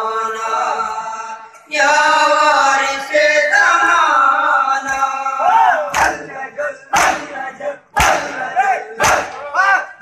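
Men's voices chanting a noha, a Shia lament, in unison. About six seconds in, loud unison chest-beating (matam) starts: palms striking bare chests about once a second, with short shouted chants between the strikes.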